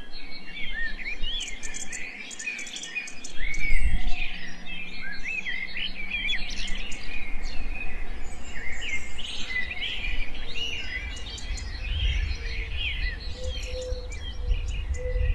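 Many small birds chirping and twittering, short rising and falling chirps overlapping throughout. A low rumble sits underneath from about three and a half seconds in.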